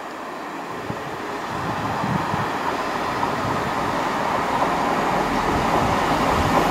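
Class 166 Networker Turbo diesel multiple unit approaching. Its diesel engines and its wheels on the rails make a steady rumble that grows louder as it nears.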